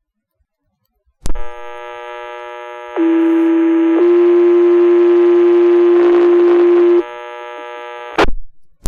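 Fire dispatch radio channel keys up with a click and hums open. A two-tone sequential pager alert follows: one steady tone for about a second, then a slightly higher tone held for about three seconds, sounding to page out the volunteer firefighters. The channel hums on briefly and closes with a squelch burst near the end.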